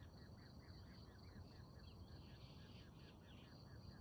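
Faint insect chorus: a steady high trill with a quick repeating chirp, about five a second.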